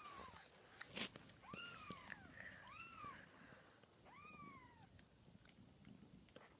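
A three-week-old kitten mewing repeatedly: about four thin, high-pitched cries, each rising then falling in pitch.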